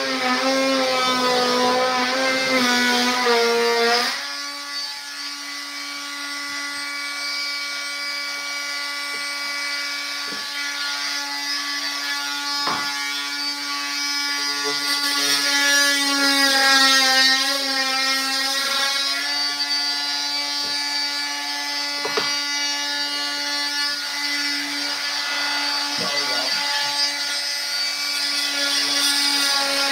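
Handheld power tool running continuously on the hardwood floorboards, a steady buzzing hum whose pitch shifts as it works. There are a few sharp knocks, the clearest about 13 and 22 seconds in.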